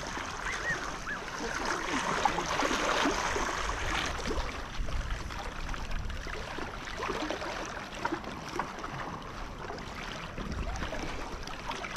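Sea water washing and splashing against a breakwater: an uneven, continuous wash that swells and eases.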